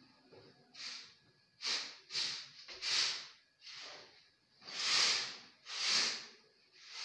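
Mosquito net panels being slid along an overhead ceiling rail like curtains: a run of about eight hissing swishes, roughly one a second.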